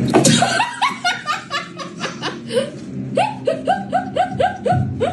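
A person laughing hard in a long run of short, rhythmic 'ha-ha' bursts, about four a second.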